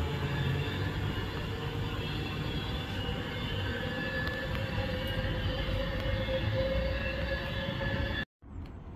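Avanti West Coast Class 390 Pendolino electric train running on curved track, with steady wheel squeal over the running noise. The sound cuts off abruptly near the end, leaving quieter background.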